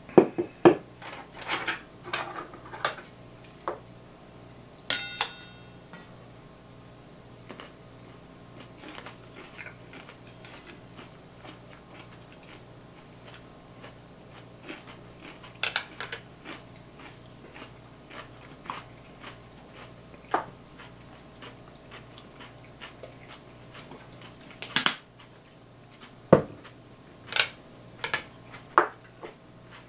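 A drink can cracked open with sharp clicks in the first second, followed by scattered clinks and taps of chopsticks and tableware against plates and bowls while eating, busier again in the last few seconds.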